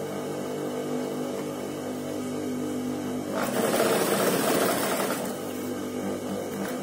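Industrial lockstitch sewing machine stitching piping onto a shirt neckline: a steady motor hum, then about three and a half seconds in a louder run of fast stitching lasting nearly two seconds before it drops back to the hum.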